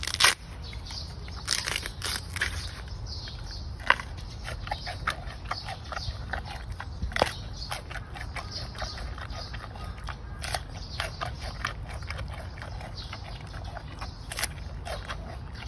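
Giant panda biting and chewing bamboo: irregular, crisp crunching and snapping bites over a steady low background rumble.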